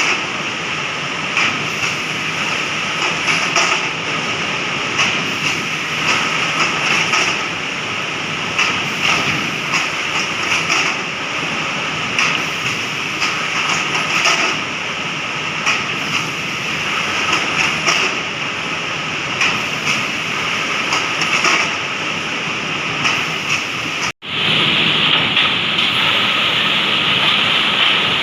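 MDF board processing line running: continuous machinery noise with frequent irregular knocks. About 24 seconds in the sound cuts briefly, then gives way to a steadier, higher-pitched machine noise.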